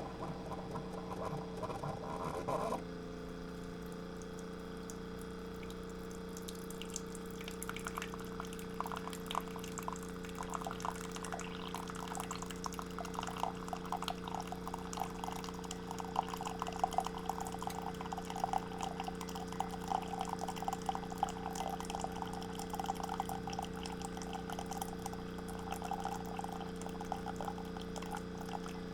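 A short bit of pitched animal-like calling that cuts off abruptly about three seconds in, then a steady low hum with water dripping and trickling, the dripping patter growing denser from about eight seconds in.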